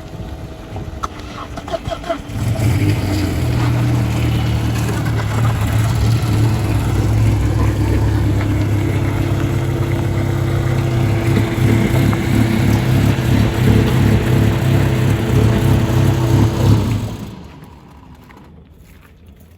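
Car engine running steadily as the car drives; the hum swells about two seconds in and cuts off abruptly near the end.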